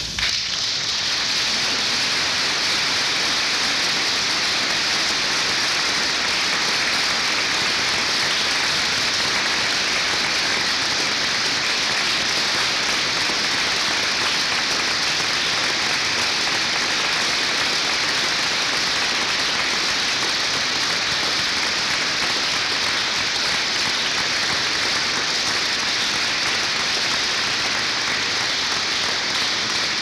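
Loud, steady, even hiss that cuts in abruptly and stays unchanged.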